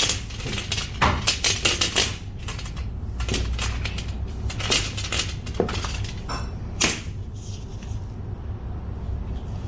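Irregular clicking and rattling from a resistance band set's small metal hooks and plastic packaging being handled and unpacked. The clicks come densest about a second in, then scattered, with a sharper knock near the seven-second mark.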